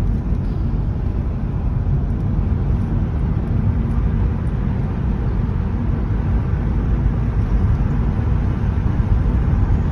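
Steady low road rumble inside a moving car's cabin: engine and tyre noise on an asphalt road at an even cruising speed.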